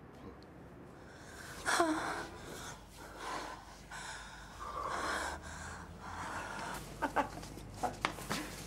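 People breathing heavily and gasping in several breathy swells, one breaking into a short falling moan about two seconds in. A few sharp clicks near the end.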